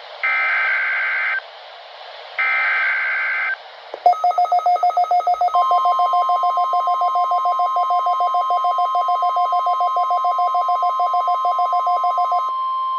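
Emergency alert broadcast on weather radio: the last two of the three warbling data bursts of the SAME alert header, each about a second long. Then, about four seconds in, a fast two-pitched pulsing beep starts, about six pulses a second, and a second and a half later the steady 1050 Hz weather radio warning alarm tone joins it. The beeping stops shortly before the end while the steady tone holds.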